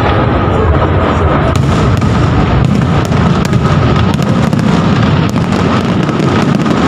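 Aerial firework shells bursting in a dense, continuous barrage: overlapping booms form a steady rumble, with many sharp bangs and crackles on top.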